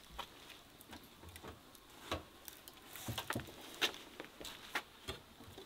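Scattered light knocks and scrapes of a door panel being handled and fitted into the mouth of a wood-fired oven, a dozen or so separate short knocks with quiet between them.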